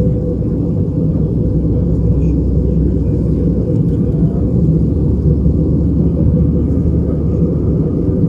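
Steady low cabin rumble of an Airbus A320-214 in flight: its CFM56 engines and the airflow over the fuselage, heard from inside the passenger cabin. The deepest part of the rumble drops a little about four seconds in.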